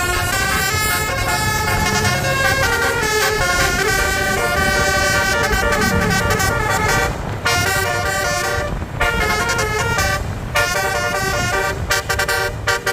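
Bus telolet horn, a Basuri multi-tone air horn, playing a melody of several notes sounded together and stepping from pitch to pitch. There are short breaks about 7, 9 and 10 seconds in, and quicker choppy notes near the end.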